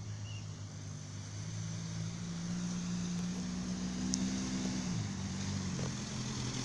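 A USPS Grumman LLV mail truck's engine running as the truck drives up close, growing louder; its pitch climbs and then drops about five seconds in.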